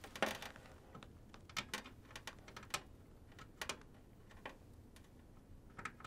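Irregular light clicks and taps of a SATA power cable and its plastic connector being handled and plugged into the back of a modular PC power supply.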